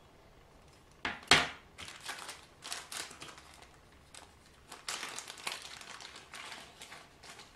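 A sharp click about a second in, then irregular crinkling and rustling of clear plastic packaging as small carbon-brush parts of a sewing-machine motor are handled.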